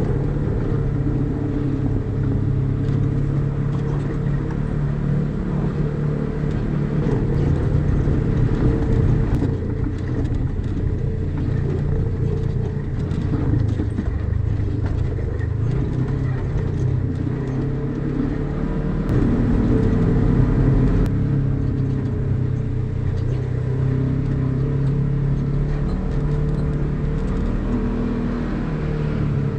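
Polaris RZR side-by-side's engine running as it drives a rough dirt trail, heard from on board, its note shifting up and down with the throttle. Scattered clicks and knocks from the rough ground come through over the engine.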